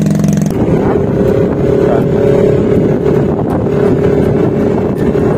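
Yamaha scooter riding at about 25 km/h: a steady engine drone with wind buffeting the microphone. For the first half second an engine idles, then the sound changes abruptly to the riding drone.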